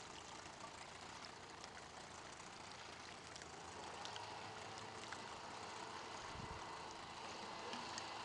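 Small boat outboard motor running steadily at idle, heard faintly over a steady hiss.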